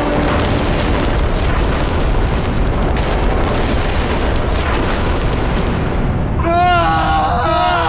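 Dramatic soundtrack effect: a heavy, rumbling boom that runs for about six seconds. Near the end it gives way to a loud, wavering, drawn-out cry.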